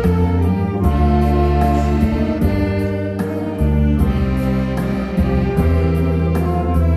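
Orchestral music: sustained chords that change every second or two, over a steady beat.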